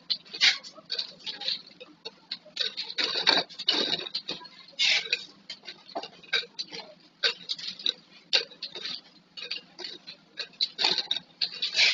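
Plastic flip-top bottles clicking and knocking against one another as they are handled, an irregular run of quick light clacks.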